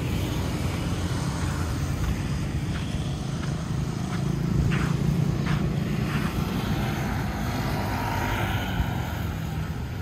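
Street traffic: cars and motorbikes running past on a city road, a steady low rumble that swells about halfway through.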